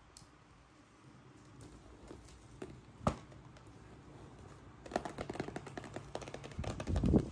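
Long fingernails tapping and clicking on small cardboard blind boxes as they are handled in their display case. There is a single sharp click about three seconds in, and a busy run of taps and rustles over the last two seconds.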